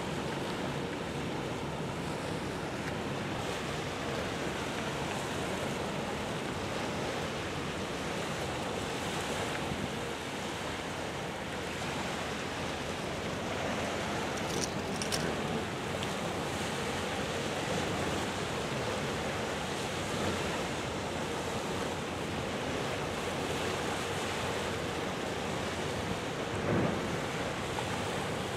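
Steady wash of wind and water at the shoreline, with wind rushing on the microphone. A couple of brief high squeaks come about halfway through, and a short dull bump near the end.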